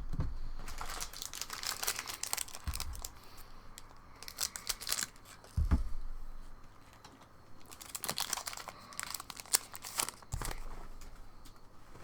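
Foil booster-pack wrapper crinkling and being torn open, in three bouts of crackling, with a few soft low thumps as the pack and cards are handled on the table.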